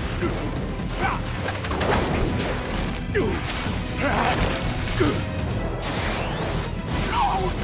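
Action-scene soundtrack: dramatic background music mixed with fight sound effects, crashing impacts and quick whooshes of bodies and weapons moving through the air.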